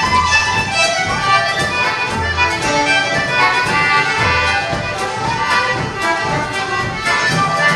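An Irish traditional tune played together on flute, fiddle, concertina and bodhrán, the frame drum beating low underneath the melody.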